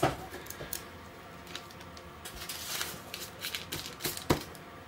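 Soft rustling and light taps of dough being lifted and folded over on baking paper on a metal tray, with a sharper click about four seconds in.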